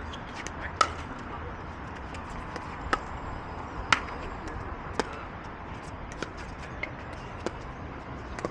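Pickleball paddles hitting a plastic ball during a rally: sharp pops roughly a second apart, a few loud and several fainter.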